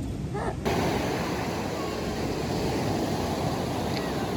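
Surf washing on a beach: a steady rushing noise that cuts in suddenly about half a second in.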